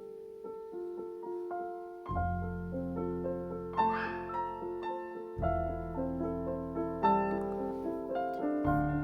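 Background piano music: a gentle melody, with low bass chords coming in about two seconds in.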